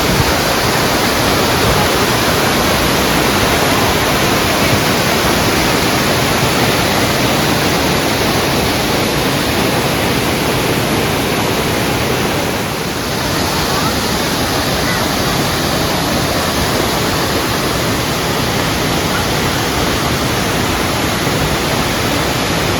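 Waterfall: a steady, loud rush of falling water that dips briefly about halfway through.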